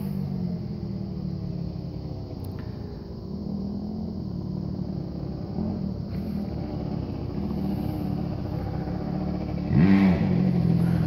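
Jeep Wrangler JK engine idling in gear with no throttle as the Jeep crawls slowly over rocks. Near the end, a brief louder sound rises and falls in pitch.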